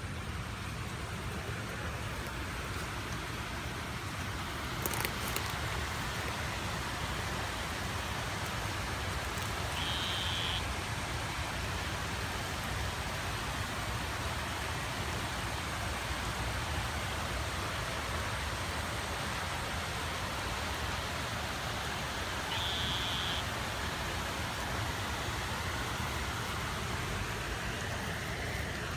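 Steady hiss of rain falling on wet ground and floodwater, with running water from the flooded creek mixed in. There is a brief knock about five seconds in.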